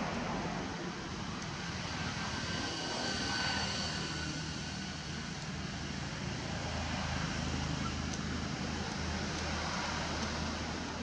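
A steady, low engine drone over a bed of outdoor noise, with a faint high whine about two to four seconds in.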